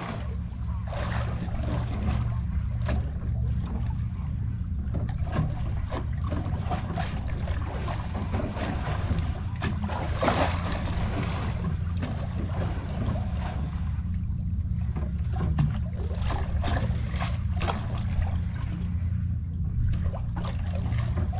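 Steady low rumble of wind on the microphone, with sea water slapping and splashing against the boat's hull; the loudest splash comes about ten seconds in.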